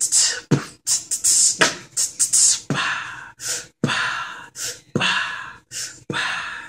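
A person beatboxing a steady beat: sharp kick and snare sounds alternating with longer hissing strokes.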